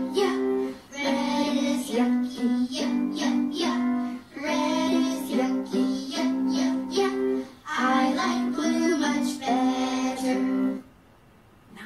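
A children's song about the letter Y and its sound, sung over instrumental accompaniment with a regular strummed beat. It stops about a second before the end.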